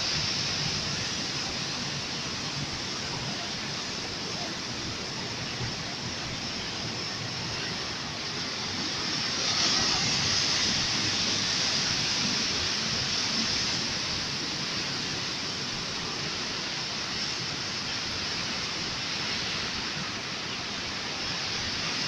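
Sea surf breaking and washing over coastal rocks, a steady rushing wash that swells louder about ten seconds in, then settles.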